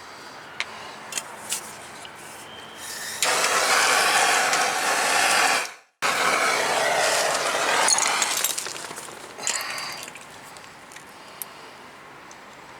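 A few light metal clicks, then a handheld torch flame hissing loudly in two long stretches, heating a seized brake caliper bleed screw to free it.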